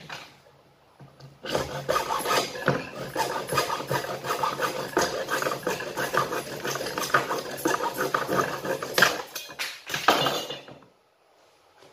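Hand saw cutting through PVC pipe in quick back-and-forth strokes. It starts about a second and a half in and stops abruptly near the end.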